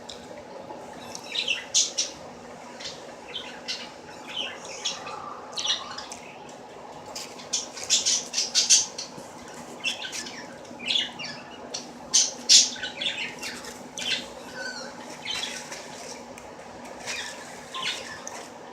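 Close-up chewing and mouth sounds of someone eating chicken: irregular short wet clicks and crunches, over a steady low hum.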